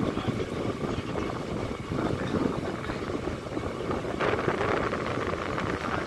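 Steady rumbling, rushing noise of a vehicle in motion.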